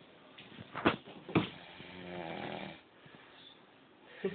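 A person snoring in deep sleep. Two short, sharp snorts come about a second in, then one long rattling snore, and the next snore begins right at the end.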